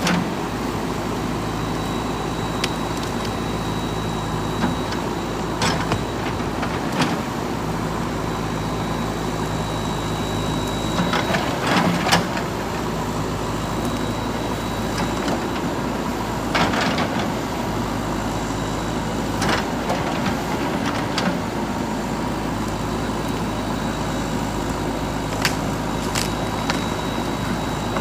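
JCB 3DX backhoe loader's diesel engine running steadily as the machine works, with sharp knocks now and then, a cluster of them about halfway through.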